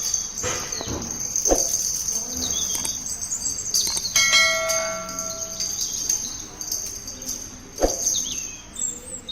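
A bell struck once about four seconds in, ringing with a clear tone that fades over about a second and a half, over a steady high-pitched hiss and a few scattered knocks.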